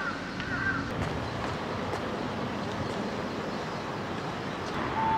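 Steady outdoor background noise: an even hiss with no rhythm or pitch, with a few short chirps in the first second and a brief steady tone near the end.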